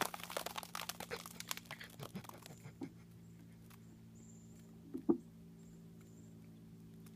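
Soft, melting ice cream pouring out of a bucket over a man's head and splattering onto him and the grass: a quick run of wet splats and drips over the first three seconds, fading out. One short, louder sound comes about five seconds in.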